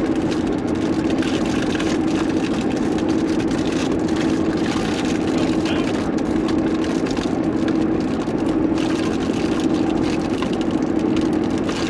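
Steady road and engine noise heard from inside a moving car's cabin, with windows up, an even drone with a low hum.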